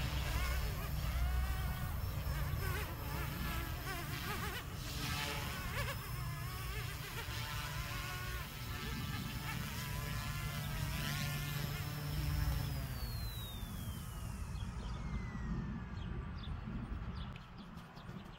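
Electric RC helicopter (Goosky S2 with a heavy resin-printed airframe) flying low, its motor and rotor making a buzzing whine that wavers up and down with throttle. Its throttle was left at only 60%, probably why it flies sluggish. About twelve seconds in the whine falls steadily in pitch as the rotor spools down after touchdown.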